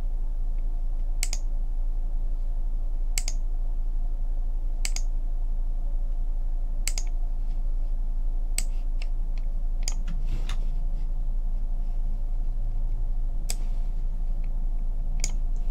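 Computer mouse clicking, about nine single sharp clicks spaced a second or two apart, over a steady low electrical hum.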